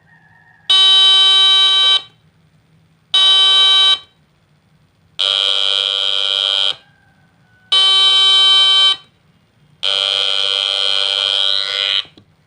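Homemade NE555 timer doorbell circuit sounding a harsh, buzzy electronic tone in five separate bursts of one to two seconds, as the button is pressed and released. Two slightly different tones alternate between the bursts.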